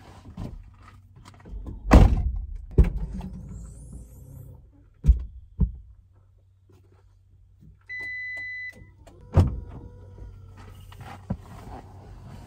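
Minivan doors thunking open and shut several times, the loudest about two seconds in, with a steady electronic beep lasting about a second partway through, over a low steady rumble.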